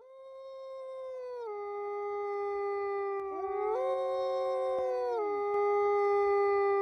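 Long, drawn-out canine howls fading in, each held note stepping down in pitch, with a second howl joining about three seconds in and overlapping the first for about two seconds.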